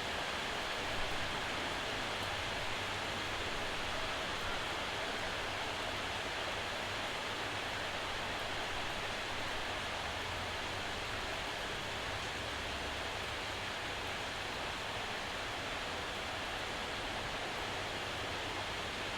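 Steady rain shower falling, an even hiss of rainfall without separate drops or other events standing out.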